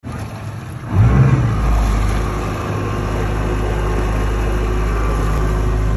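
Twin Yamaha outboard motors running with a low, steady drone. About a second in the sound swells louder, then holds steady.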